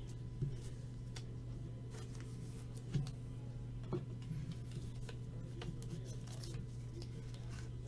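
Trading cards being handled: a few soft clicks and slides of card stock over a steady low electrical hum.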